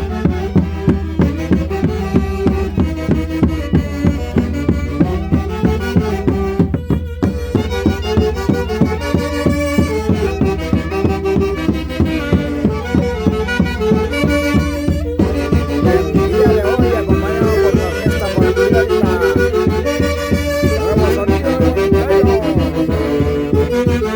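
Andean folk orchestra playing: wind instruments carry the melody in several parts over a steady beat of about two strokes a second.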